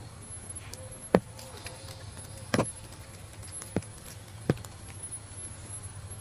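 Four sharp, short clicks at uneven intervals, the first the loudest, over a steady low hum.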